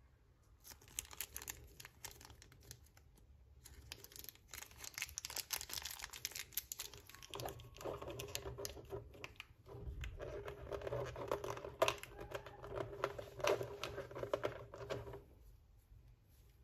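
Clear plastic blister tray crinkling and crackling as it is flexed and small figure parts are pried out of it, with frequent sharp clicks. It starts just under a second in, pauses briefly, and stops about a second and a half before the end.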